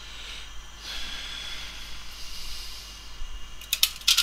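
Red protective plastic film being peeled off a new iPhone 4S replacement screen: a soft hiss, then a quick run of sharp crackles near the end as the film comes away.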